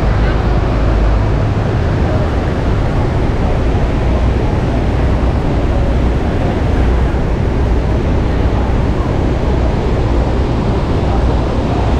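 Steady roar of Niagara's American Falls and the churning river below them, heard from a boat on the water, with wind buffeting the microphone as a heavy low rumble.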